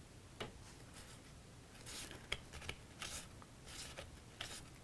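Cardstock pieces of a paper house handled by hand: faint rustles and scrapes, with a few small sharp clicks, as a glued side panel is pressed into place.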